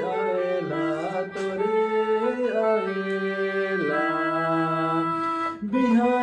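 Casio mini electronic keyboard playing a slow tune in long held notes. The sound breaks off briefly about five and a half seconds in.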